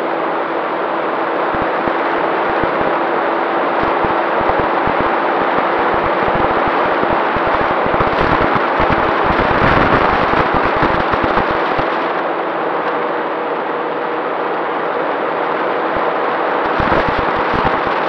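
Wind rushing and buffeting over an onboard camera microphone on a model plane in flight, with rapid uneven low thumps. Under it the plane's brushless electric motor and 7x5 propeller drone steadily, its tone stepping higher about two-thirds of the way through.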